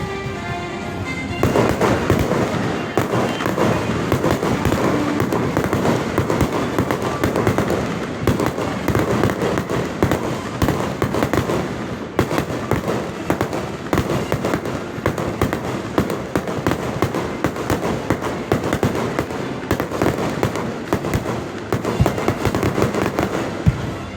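Fireworks going off in quick succession: dense, continuous crackling and popping that thickens about a second in and keeps up without a break.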